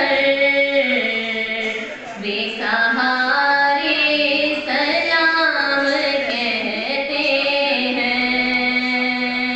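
A woman's solo unaccompanied voice chanting a devotional melody, a naat in praise of the Prophet, in long drawn-out melismatic phrases, ending on a long held note.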